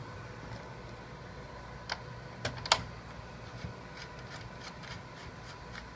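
A few sharp metallic clicks and taps, the loudest about three seconds in, as a coaxial antenna cable's connector is fitted onto the transmitter's antenna socket. Under them runs a steady hum of a cooling fan and air conditioning.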